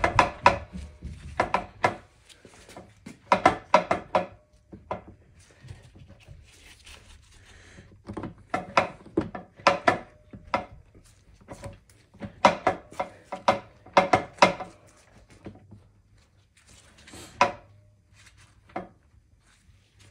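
Bursts of quick, light knocks, several taps at a time with pauses between: the oil pump of a ZF 8HP automatic transmission being tapped gently down into the case past its Teflon sealing ring.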